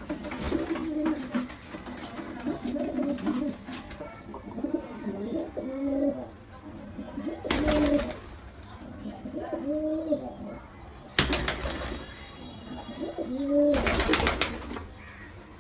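Pigeon cooing in repeated short, low, arched calls, broken four times by brief loud bursts of rustling noise.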